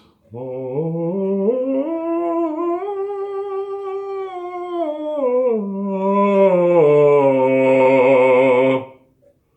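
A male bass voice sings one long unbroken vocal exercise. It glides up from a low note to a higher one, holds there, comes back down, and ends on a low held note with vibrato before stopping. It demonstrates the lifted soft palate ('inner smile') and loosened jaw hinge for reaching high notes.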